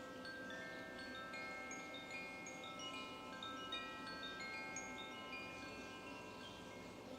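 Wind chimes ringing gently: many clear tones at different pitches struck at irregular moments, each ringing on and overlapping the others.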